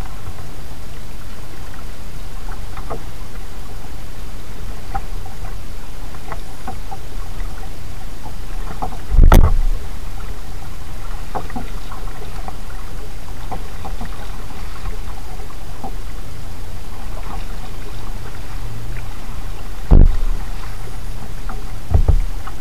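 Kayak paddling heard through a camera mounted on the boat: a steady low rumble with light scattered drips and splashes from the paddle, and three heavy thumps, one about nine seconds in and two near the end, as something knocks against the kayak.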